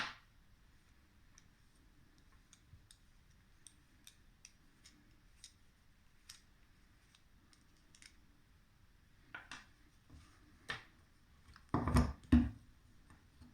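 Faint, irregular small metallic clicks of hand tools and screws being worked on a survival knife, then several louder knocks and clatter from about nine seconds in, the loudest around twelve seconds.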